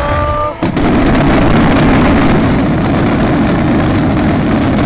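Finale barrage of fireworks: many shells bursting at once in a loud, continuous rumble and crackle that starts abruptly just over half a second in.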